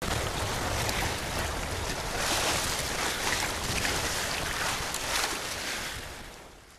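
Water rushing and splashing along the hull of a Maxi 95 sailboat heeled over and under way in choppy water, with wind rumbling on the microphone. Louder surges of spray come about two, three and five seconds in, and the sound fades out near the end.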